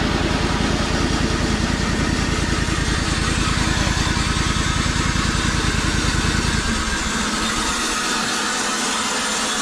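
Sawmill engine running with a fast, even pulse, along with mechanical noise from the mill. About two-thirds of the way through, the low engine pulse drops away while the higher mechanical noise carries on.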